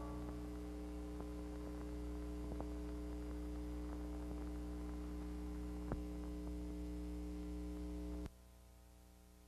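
Steady electrical hum with a few faint clicks on the soundtrack of an old film transfer. About eight seconds in it cuts off suddenly, leaving a fainter hum.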